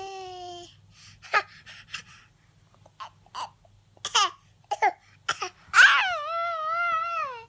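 A baby's high-pitched vocalizing: a short squealing call at the start, a string of short gasps and giggly squeaks, then a long wavering squeal near the end.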